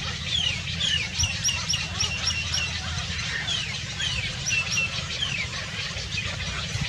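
A small songbird chirping: a string of sharp, downward-sliding high notes, then a quick run of about seven short repeated notes, then more downward-sliding notes, over a steady low rumble.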